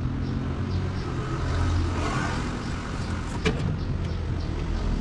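Low rumble of a motor vehicle engine nearby, swelling about two seconds in and easing off, with a sharp click a little after three seconds.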